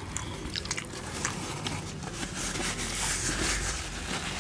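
Close-up mouth sounds of a person eating chicken momo without hands: wet smacking and chewing clicks, with a longer airy hiss from about halfway in that lasts over a second.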